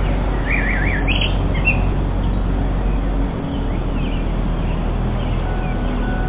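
Small birds chirping over the steady rush of a waterfall. A quick warbling trill and a few short chirps come in the first two seconds, then fainter calls.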